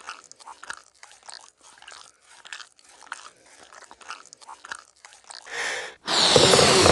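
Cartoon sound effects for an animated porcupine character: a run of small, irregular crunchy chewing-like clicks, then near the end a breathy blow that swells into a loud rush of air as she blows up a balloon.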